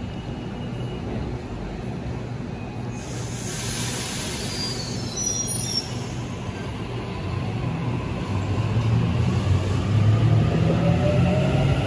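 Sydney Trains double-deck electric train at an underground platform, humming steadily, with a burst of hiss and a few high squeals about three seconds in. From about eight seconds in the train pulls away, its motor whine rising in pitch and getting louder.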